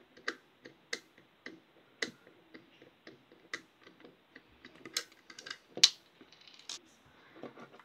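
Light, sharp clicks and taps of hand work on the night light's small plastic housing, about two a second, with two louder clicks around five and six seconds in.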